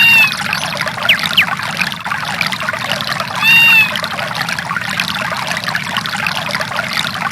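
Samsung SGH-D410 nature-sounds ringtone: a steady rush of running water with a swooping, bird-like call twice, about three and a half seconds apart.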